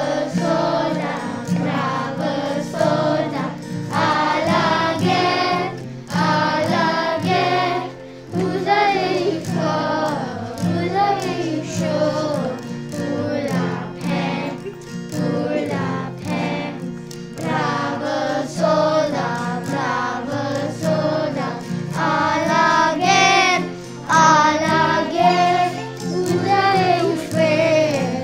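A group of children singing a French song together, in phrases of a few seconds each, over a steady instrumental accompaniment.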